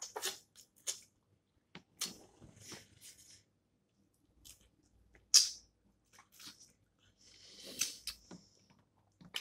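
Snow crab legs being eaten close to the microphone: scattered shell cracks, clicks and chewing, the loudest crack about five seconds in, and a longer noisy rush about a second long near the end.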